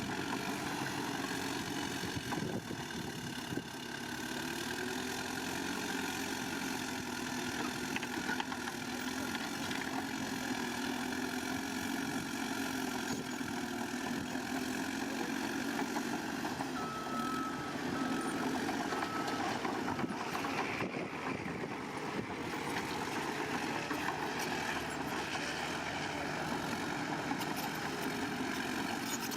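Diesel engine of heavy earthmoving machinery running, its pitch rising and falling as it works. A little past halfway there is a short run of reversing beeps.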